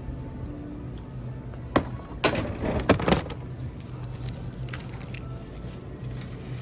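Onions being picked through and handled: a few sharp crackles and knocks about two to three seconds in, over a steady low hum.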